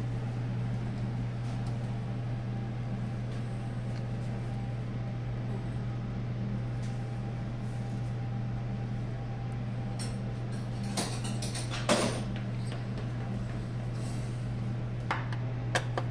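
A steady low electrical or mechanical hum, with a few sharp clicks and knocks of hands and tools handling metal parts, the loudest about twelve seconds in and a couple more near the end.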